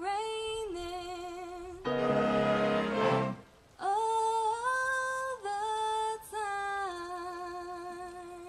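A woman sings long, held notes with vibrato into a microphone, backed by a big band. About two seconds in the band's horns play a loud chord for a second or so, and then the voice comes back with more held notes.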